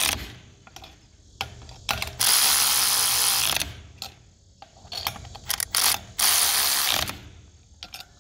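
Nuts being run down onto the long bolts that clamp a two-piece go-kart rim. A tool runs in bursts, the longest about a second and a half a couple of seconds in and a shorter one near the end, with short metal clicks and knocks in between.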